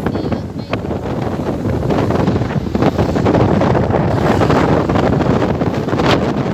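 Wind buffeting the microphone from a moving vehicle, a loud rumbling rush over the vehicle's road noise.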